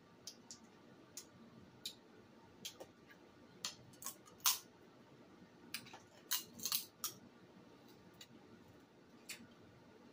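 Irregular sharp clicks and crackles of shellfish being eaten: crab and shrimp shells picked apart by hand, and chewing, with a quick run of clicks about six to seven seconds in.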